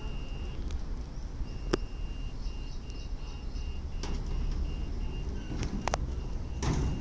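Heavy truck's diesel engine running with a steady low rumble as the truck manoeuvres slowly, with a faint high beep repeating a few times a second. A sharp click comes near two seconds in and a brief high squeal near six seconds.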